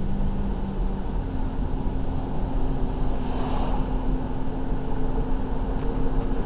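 Car engine and road noise heard from inside the cabin while driving: a steady low rumble with an engine hum that steps up in pitch about a second in.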